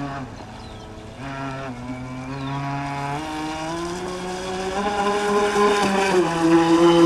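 Electric drive motor of an RC model motor yacht (Thunder Tiger Atlantic Motor Yacht) whining under throttle as the boat runs on the water. The whine steps up in pitch a little over a second in and again about three seconds in, and grows louder as the boat comes toward the camera.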